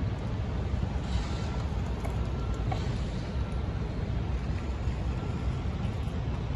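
Steady low rumble of road traffic, a pickup truck among it driving past the crossing.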